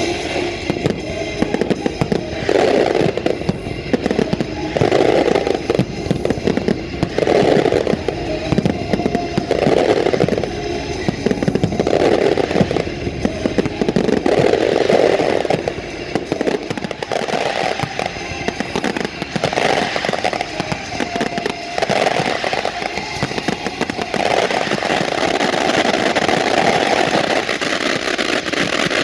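Fireworks display going off continuously: a dense, irregular run of bangs and crackles, with orchestral music playing alongside.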